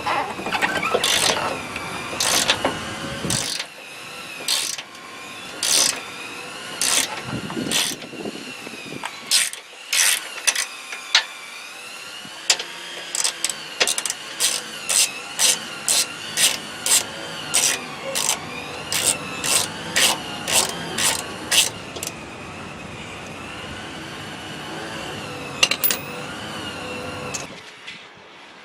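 Hand ratchet wrench clicking as a 15 mm engine-mount nut is loosened. The strokes come irregularly at first, then as a quick steady run of about two a second in the middle. A faint high wavering tone sounds behind the clicks.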